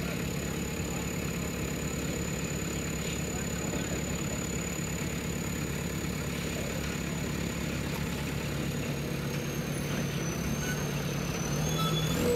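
Heavy diesel engine running steadily. Near the end its note rises and gets louder as the laden truck drives down to the water.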